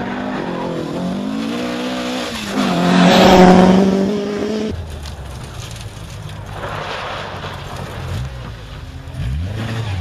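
Ford Escort rally cars at full throttle on a rally stage: the first engine's pitch rises and falls through gear changes and is loudest as the car passes about three seconds in. After an abrupt change just before the five-second mark a second car is heard, quieter, with its engine pitch rising again near the end.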